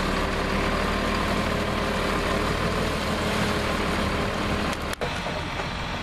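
Diesel engine of a bitumen distributor truck running steadily, a continuous hum under a broad hiss, as the truck lays hot asphalt binder. About five seconds in, the sound cuts abruptly to a quieter engine sound.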